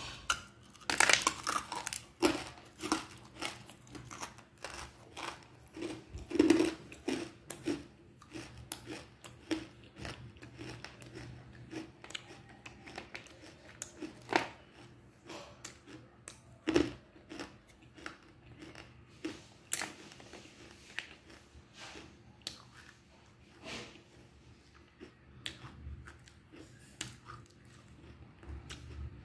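Close-up biting and chewing of a dry chunk of black edible clay: loud crisp crunches about a second in and again around six seconds, then steady crunchy chewing that grows sparser and softer toward the end.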